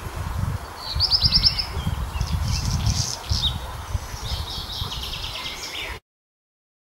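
Black redstart singing: a quick run of falling whistled notes about a second in, then scratchy, crackling phrases twice more. A low rumble of wind on the microphone runs underneath, and all sound cuts off about six seconds in.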